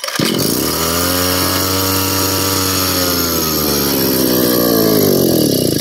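Brush cutter's small petrol engine catching and revving up, running steadily at speed, then sagging in pitch near the end as the throttle comes back. With the idle stop on the throttle broken off, it has no idle to settle at and falls away toward a stall.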